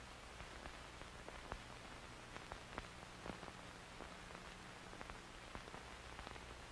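Faint background hiss and a steady low hum, with a scattered series of soft clicks.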